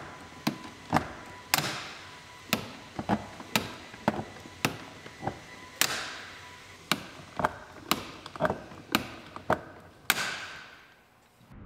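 Long-handled hand lever rivet gun setting rivets through a plastic license plate bracket: a run of sharp clicks about two a second as the handles are worked, with a few louder snaps as rivets set, the loudest about ten seconds in.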